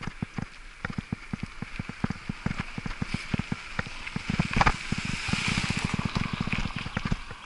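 Bicycle rattling over a bumpy dirt-and-gravel road, picked up by an action camera mounted on the bike: a quick, irregular stream of knocks and jolts, with one harder jolt about halfway through and tyre hiss growing in the second half.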